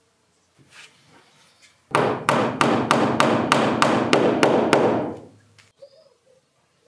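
Claw hammer driving a peg into a hole in an oak board: a quick run of about a dozen sharp blows, about four a second, starting about two seconds in and lasting just over three seconds.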